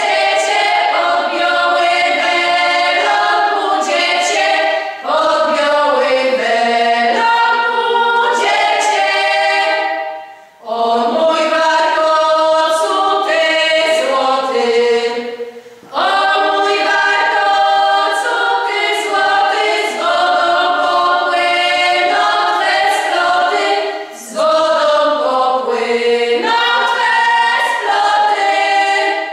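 Women's folk singing group of six voices singing a regional Polish folk song unaccompanied, in several parts. It goes in long phrases with short breath breaks between them, and the song ends at the very end.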